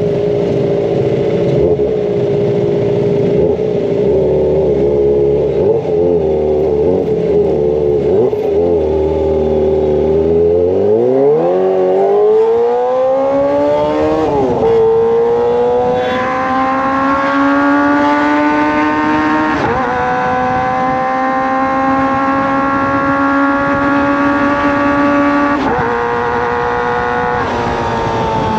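Kawasaki ZX-25R's 250 cc inline-four running through a Racefit Slash aftermarket exhaust, held steady at first, then accelerating hard about ten seconds in. The pitch climbs in pulls, broken by three brief drops at the upshifts, and falls slightly near the end.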